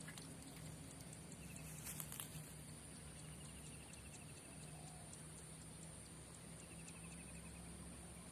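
Insects calling: a steady high-pitched hum, with short pulsing trills now and then and a few faint clicks about two seconds in.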